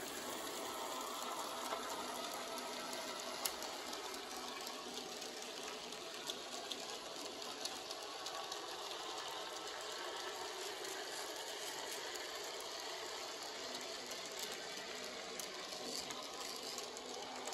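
N scale model train running on its track, the Bachmann Percy locomotive hauling a long string of freight wagons: a steady light whirr and rattle of the small motor, gears and wheels, with a few faint clicks.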